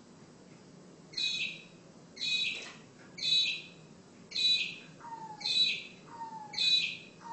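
A bird giving a harsh, rasping call six times, evenly spaced about once a second. From about two-thirds of the way in, short whistles falling in pitch come between the calls.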